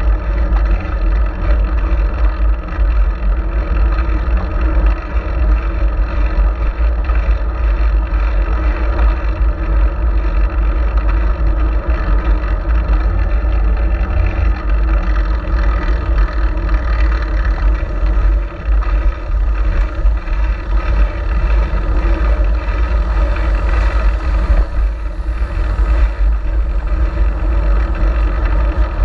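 Wind rushing over an action camera's microphone on a moving fixed-gear bicycle, mixed with road and tyre noise: a loud, steady low rumble.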